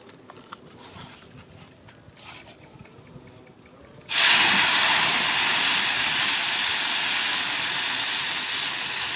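Grasshoppers deep-frying in hot oil: a sudden loud sizzle about four seconds in, then a steady frying hiss that slowly eases.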